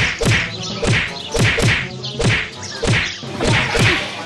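A rapid run of dubbed-in punch sound effects, each a swish and a smack with a dropping thud, about two or three a second.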